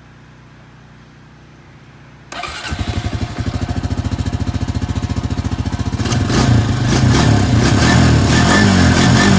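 ATV engine being cold-started. About two seconds in it bursts into life with an even, rapid pulsing beat, then grows louder and fuller about six seconds in as it settles into running.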